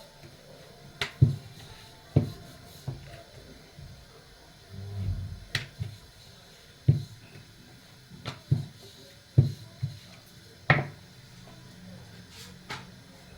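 Irregular knocks and thuds of kitchen work while making rotis, about a dozen spread out, with a short low rumble near the middle.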